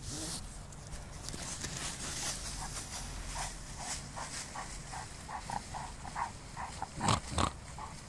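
Dog sniffing along the ground in quick, short puffs repeated two to three times a second, with two louder snorting blows near the end.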